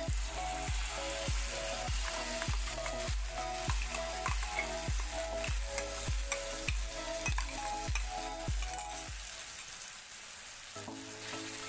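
Wet ground masala paste sizzling as it goes into hot oil in a frying pan. Background music with a steady beat plays under it and drops out about nine seconds in.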